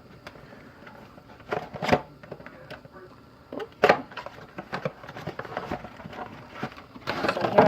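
A cardboard trading-card box being opened and its packs handled: scattered rustling and crinkling with sharp knocks about two and four seconds in.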